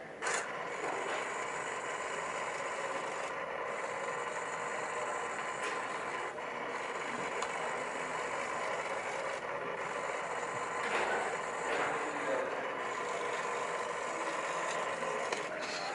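Small hobby servo motors in 3D-printed plastic robot modules running, a steady gear whine and buzz, with a sharp click just after the start and two more later.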